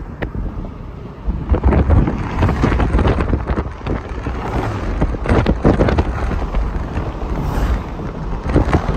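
Wind buffeting the microphone in uneven gusts from a moving car, over a rumble of tyre and road noise.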